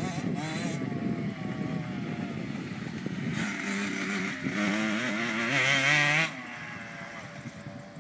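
Mini motocross bike's engine revving, its pitch rising and falling again and again as it rides the dirt track. It is loudest about five to six seconds in, then falls off suddenly and carries on quieter as the bike moves away.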